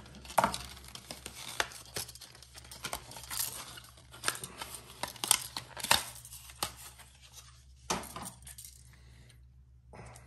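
Stiff plastic lure packaging crackling and crinkling as it is opened and handled, with light metallic clinks from the treble hooks of a Yo-Zuri Hydro Magnum lure as it is pulled free. The crackling stops near the end.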